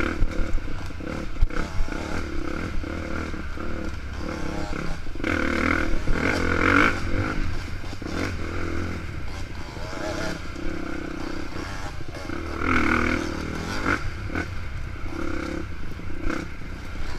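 KTM dirt bike engine heard from on the bike, revving up and down with the throttle as it rides a rough trail, with clattering knocks from the bike over bumps. The engine swells loudest about six seconds in and again about thirteen seconds in.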